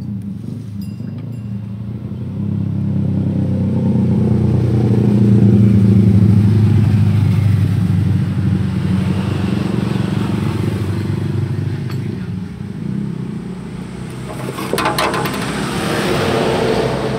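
Yamaha L2 Super motorcycle's two-stroke single-cylinder engine running, speeding up over the first few seconds and easing back down. A few sharp clicks come near the end.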